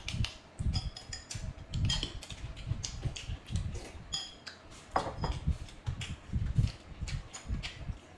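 Close-miked eating sounds: wet chewing and slurping of noodles, with small clicks of chopsticks and spoons against bowls and plates.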